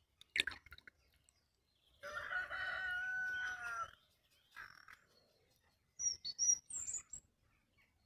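A rooster crowing once, a held call of about two seconds. It is preceded by a sharp click and followed a few seconds later by a cluster of short, high-pitched small-bird chirps.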